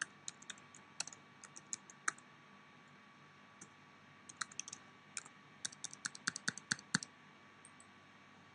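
Computer keyboard typing: a username and then a password being entered in two runs of quick keystrokes with a short pause between them. The keys stop about seven seconds in.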